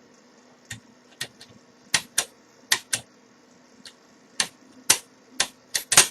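Lock pick and overlifting wire clicking against the levers inside a five-lever mortice lock as it is picked: sharp, irregular metallic clicks, more frequent and louder toward the end.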